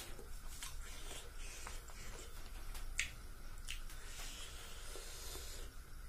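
Fish curry gravy poured from a bowl onto rice, a soft wet trickle in the second half. Before it, small squishy clicks of fingers handling wet rice, with one sharp click about three seconds in.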